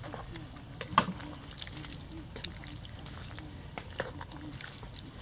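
Wooden spoon stirring a thick rice-and-shrimp paella in a cast iron Dutch oven, with scattered soft knocks and scrapes of the spoon against the pot. The sharpest knock comes about a second in.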